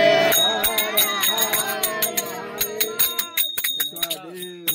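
Metal bells rung by hand in quick, uneven strikes with a bright ringing tone, starting just after the start and thinning out near the end, over several people's voices calling out.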